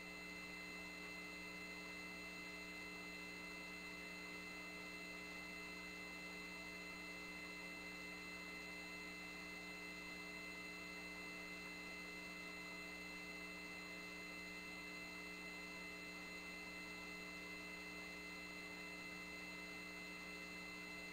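Steady electrical hum made of several fixed tones, low and high, over a faint hiss. It is the line noise of an open audio feed between voice calls.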